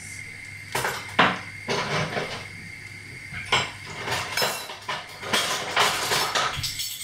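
Kitchen clatter: a run of clinks and knocks from utensils and containers being handled, the sharpest about a second in, over the faint steady sizzle of a chickpea burger frying in the pan.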